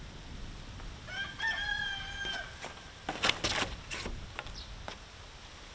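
A rooster crowing once, a held call of about a second, starting about a second in. It is followed about three seconds in by a short cluster of loud, sharp noises.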